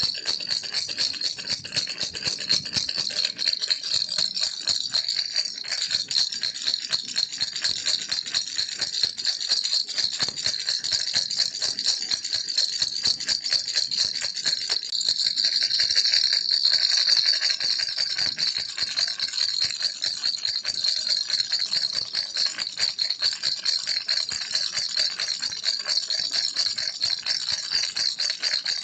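A baby's toy rattle shaken without pause: a dense, rapid clatter of small beads, swelling a little louder just past the middle.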